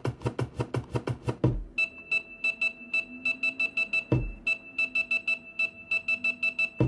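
Electronic hip hop beat. A fast run of repeated hits gives way, about a second and a half in, to a kick drum and a steady pulsing high synth note, with a deep kick about every two and a half seconds.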